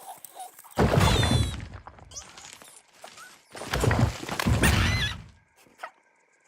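Cartoon sound effects: two loud noisy bursts, the first about a second in and the second, longer one past the middle, each carrying short squeaky chirps, with small clicks between them.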